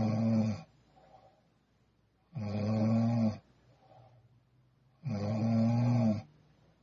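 A young woman snoring in her sleep: loud snores about every two and a half to three seconds, each lasting about a second, with faint breaths between them.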